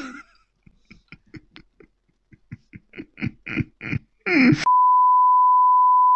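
A man's stifled laughter in short, quiet bursts, then, about three-quarters through, a steady high beep starts abruptly and holds: the test-pattern tone that goes with TV colour bars.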